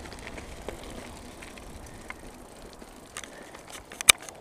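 Bicycle rolling along a gravel dirt road: tyre and ride noise with scattered small rattles and clicks from the bike, slowly getting quieter. One sharp, loud click near the end.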